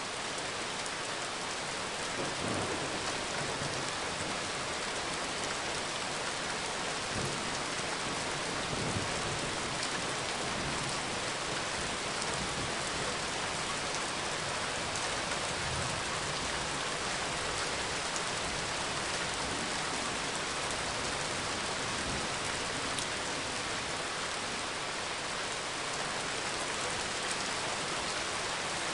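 Steady rain falling on a parking lot, an even hiss of drops with a few soft low rumbles.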